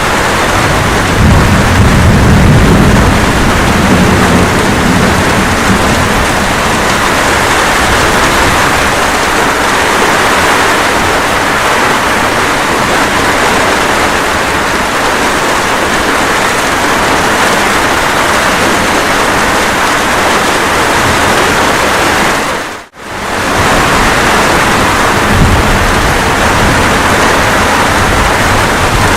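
Steady rain with low rolling thunder in the first several seconds, fainter rumbling again near the end. About three-quarters of the way through, the sound dips out for a split second and comes straight back.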